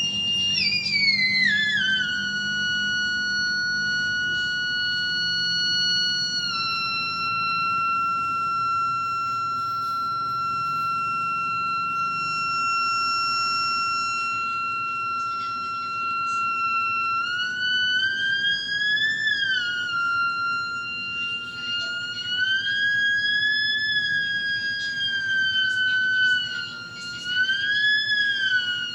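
Moog theremin sounding one continuous electronic tone. The pitch slides down in the first couple of seconds and then holds steady for a long stretch. From about two-thirds of the way through it rises and falls in slow swoops.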